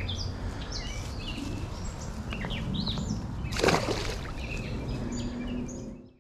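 Birds chirping over a steady outdoor background, with one short splash about three and a half seconds in as a largemouth bass is let go into the creek. The sound fades out near the end.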